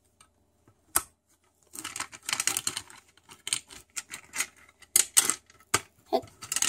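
Small plastic stationery items such as pens and glue sticks clicking and rattling as they are picked up and moved about in a pencil case: a quick, irregular run of light taps and clatters, denser from about two seconds in.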